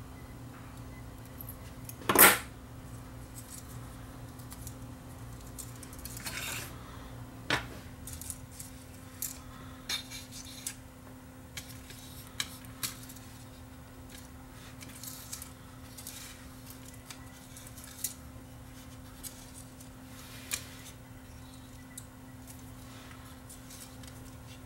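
A sharp snip or clack of small scissors about two seconds in, the loudest sound, followed by scattered light clicks, taps and a brief scrape as fingers handle the plastic 8-track cartridge and its tape loop. A low steady hum runs underneath.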